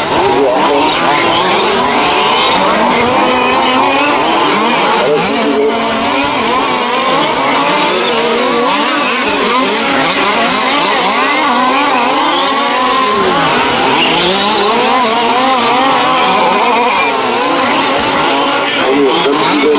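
Several large-scale gas-powered RC short-course trucks racing together, their small two-stroke engines revving up and down and overlapping.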